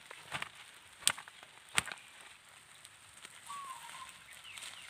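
Open fire of dry leaves, sticks and palm flower spikes crackling over a low hiss, with two sharp pops about a second in and just under two seconds in. A single short chirp comes about three and a half seconds in.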